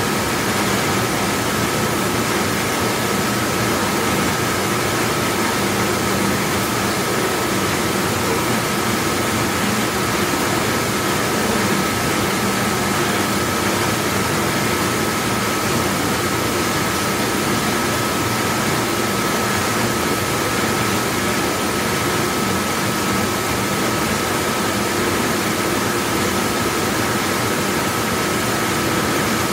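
Large commercial dishwashing machine running: a steady, even rush of noise with a thin constant whine above it and a low hum underneath.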